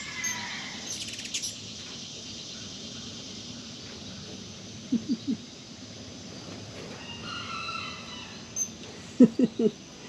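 Farm animals calling: three short low calls about five seconds in, a higher drawn-out call a couple of seconds later, and four louder short calls in quick succession near the end.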